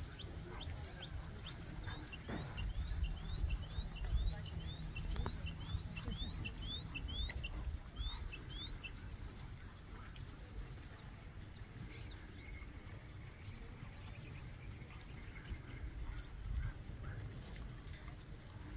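A songbird calling in a quick, even series of short rising chirps, about two a second, which stops about halfway through, over a steady low outdoor rumble.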